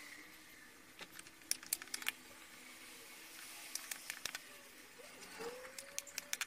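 Battery spot welder firing on nickel strip over 18650 cell positive terminals: short, sharp clicks in small clusters, over a faint steady hum.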